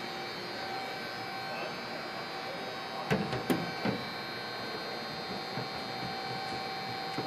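Steady background hum with a faint constant tone, and a few light knocks about halfway through.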